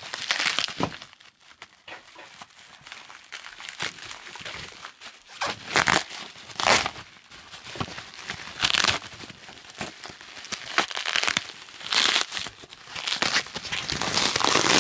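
Packaging being crumpled and torn by hand in irregular bursts of rustling and crinkling, with several louder crinkles through the middle and near the end.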